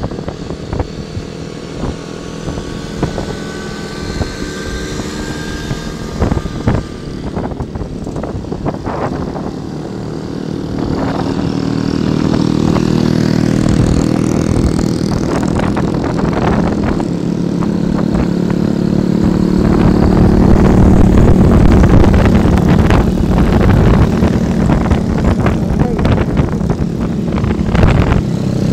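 Small motorcycle and scooter engines running while riding along at road speed, with wind buffeting the microphone. The engine note shifts in pitch early on and grows louder from about halfway through.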